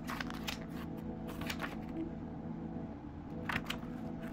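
Glossy pages of a recipe booklet being turned by hand: short papery flicks and rustles near the start, about a second and a half in, and again about three and a half seconds in, over a steady low hum.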